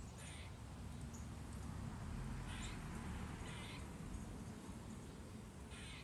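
Crows cawing at a distance: about four short, harsh calls spread a second or two apart, over a steady low rumble.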